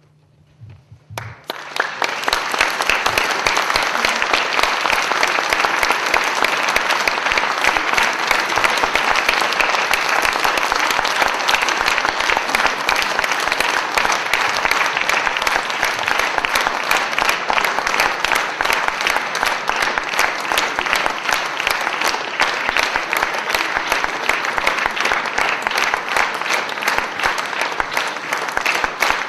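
Concert-hall audience applauding: dense, steady clapping that breaks out about a second and a half in, after a brief hush at the end of the music.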